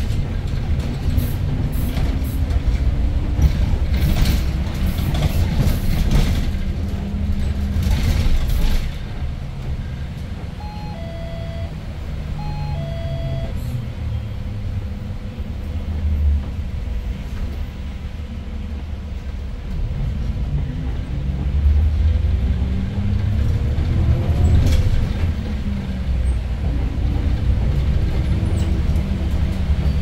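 Cabin sound of a 2019 Daewoo NEW BS090 city bus under way: its GL08P compressed-natural-gas engine rumbling and climbing in pitch through the gears over the first several seconds. It settles lower and quieter in the middle, then pulls up through the gears again from about twenty seconds in. Sharp clatters sound over the first nine seconds, and two short two-note electronic beeps come a little after ten seconds in.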